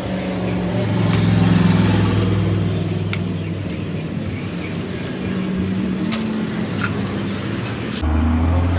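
A motor vehicle engine running, swelling briefly about a second in and then holding steady, with an abrupt change near the end.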